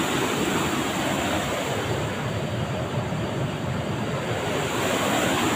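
Steady rush of a fast river running through rocky whitewater rapids.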